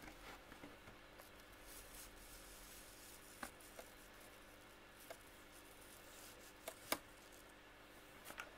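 Near silence with a faint steady hum, broken by a few faint, sharp clicks and taps as hard plastic toy animal figures are handled and nudged against each other.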